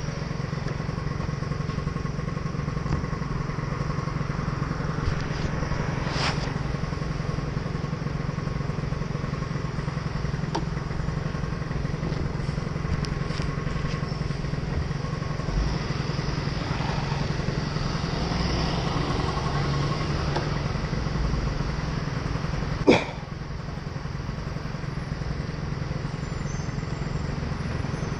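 Gilera Runner SP scooter engine idling steadily while stopped, with one sharp click about three-quarters of the way through.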